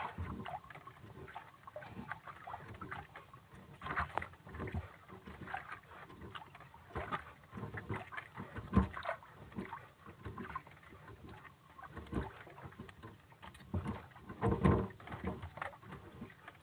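Irregular knocks and handling clatter on a small fishing boat over a steady wash of water and wind, with a few louder knocks scattered through, while a deep-water fishing line is being hauled in.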